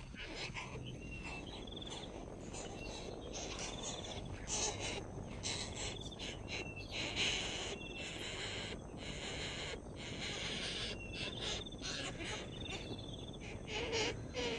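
Insects buzzing steadily, with short, high bird chirps repeating every second or two.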